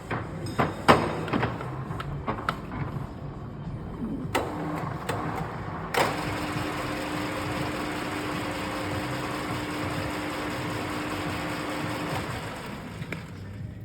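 Parkson 2N universal milling machine running, with a series of sharp clicks and knocks from its controls being worked in the first few seconds. After a loud clunk about six seconds in it runs steadily with a held hum, then winds down near the end.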